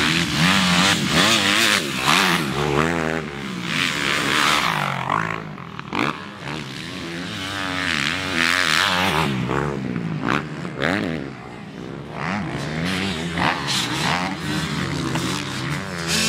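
Several motocross race engines revving hard as the bikes ride the dirt track. Their pitch rises and falls with throttle and gear changes, and the engines overlap one another. They ease off briefly about eleven seconds in, then pick up again.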